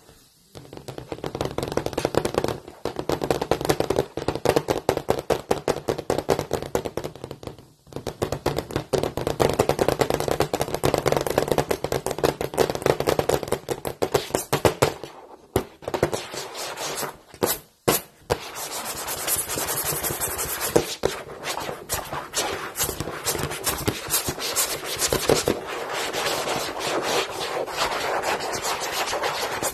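Long fingernails scratching hard across a blackboard in fast, repeated strokes, breaking off twice; about halfway through there are a few separate sharp taps or strokes, then a steadier stretch of scratching.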